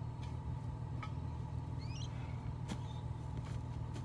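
A ute's engine idling steadily, a low even hum. A short gliding bird chirp about two seconds in and a few light clicks sound over it.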